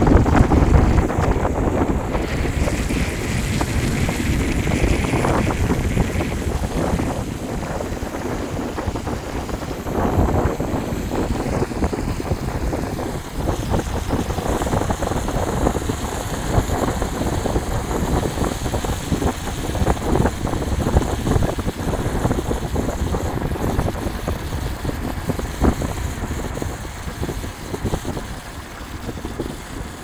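Wind buffeting the microphone over the road noise of a moving car, heard from inside the car; a steady rushing noise that rises and falls unevenly.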